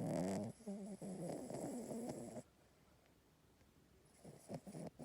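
Toy poodle snoring in deep sleep: a short snore about half a second long, then a longer wavering snore of about two seconds. After a pause come a few short snuffling breaths near the end.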